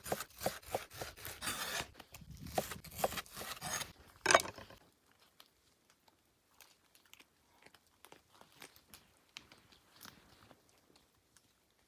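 A cleaver chopping raw beef on a wooden cutting board: a quick run of sharp knocks, the loudest about four seconds in. Then faint crunching and clicking as a dog chews.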